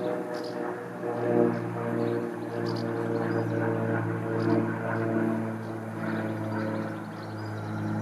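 Low, steady engine drone with several pitched tones, a little louder from about a second in, with faint short high chirps over it.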